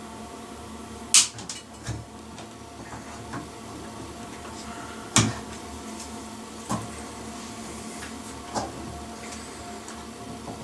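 Several sharp snips and clicks from hand tools cutting and handling the wires of a ceiling light fitting: two loud ones, about a second in and about five seconds in, and a few fainter ones, over a steady background hum.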